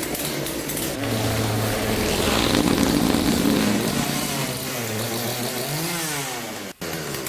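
Chainsaw engine running and revving, its pitch rising and falling, with a sudden break near the end.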